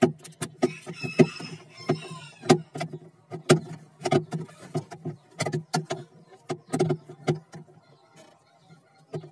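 Repeated knocks and cracks of hard plastic as the thermostat-and-lamp housing in an old refrigerator's plastic liner is hit and broken out by hand. There is a short scraping, cracking stretch about a second in, and the knocks thin out near the end.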